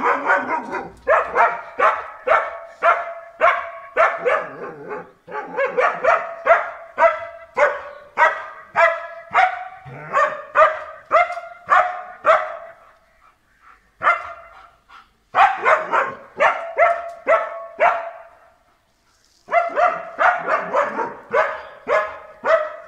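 German Shepherd barking over and over, about two barks a second, in runs broken by brief pauses about 13 and 18 seconds in.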